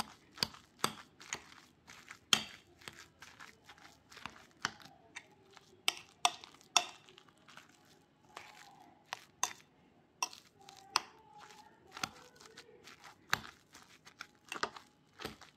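Wire potato masher mashing boiled potatoes in a ceramic bowl: soft squelching as the potatoes are pressed, with irregular clicks as the metal head knocks the bowl, about one or two a second.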